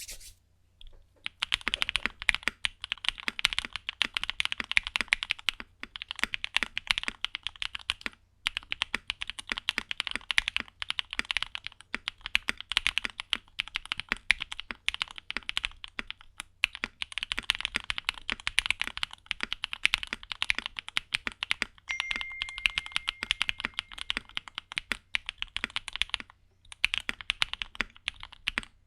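Fast, steady typing on a Neo65 mechanical keyboard in a gummy o-ring mount with Gateron Summertime switches and Keytok keycaps, giving clean, clacky keystrokes. The typing stops briefly three times.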